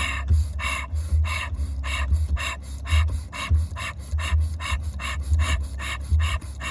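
Rapid, forceful breathing through the nose or mouth in sharp hissing puffs, about three a second: breath-of-fire (Tummo-style) breathwork. A steady low musical bass runs underneath.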